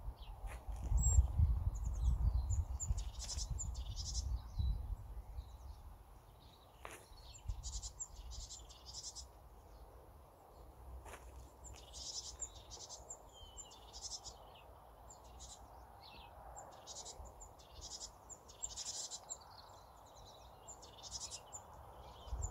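Outdoor birdsong: short, high chirping phrases repeated throughout, with a low rumble in the first few seconds.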